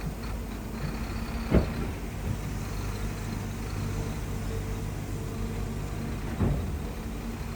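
Shantui bulldozer's diesel engine running steadily, with two sharp knocks, the louder about a second and a half in and a second near the end.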